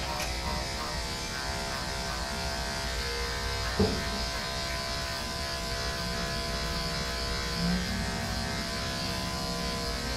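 Andis AGC two-speed electric dog clippers with a 10 blade running in a steady buzz as they shave down a thick shepherd coat. A brief knock comes about four seconds in.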